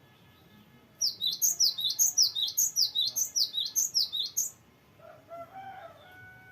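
Cinereous tit (gelatik batu) singing a rapid, rolling trill of about sixteen sharp, downward-slurred high notes, four to five a second, lasting about three and a half seconds. Fainter, lower warbling calls follow near the end.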